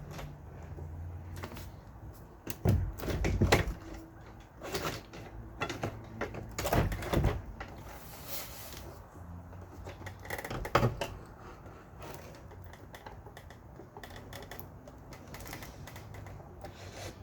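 Irregular clicks, knocks and rattles of a window air conditioner's casing being pried at and handled while trying to get a stuck side panel open.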